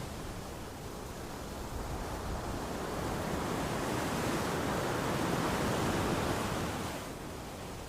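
Ocean waves washing on a shore: a steady hiss of surf that swells into a wave over several seconds, peaks about six seconds in, then draws back.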